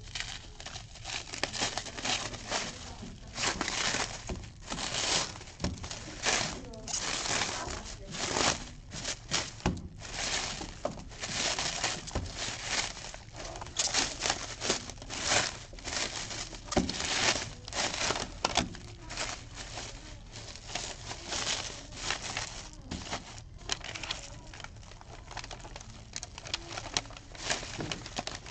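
Plastic shrink-wrap being torn and crinkled off a cardboard box in a run of irregular crackles, with stiff packing paper rustling as it is unfolded near the end.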